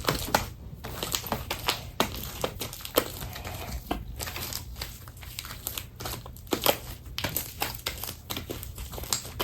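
Freshly activated slime being kneaded and squished by hand, giving many irregular small sticky clicks and crackles.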